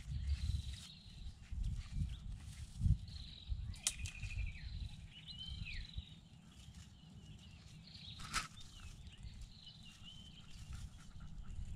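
Wind gusting on the microphone, with thin, high chirping calls, some sliding downward, scattered through it, and two sharp clicks, about four seconds in and again about eight seconds in.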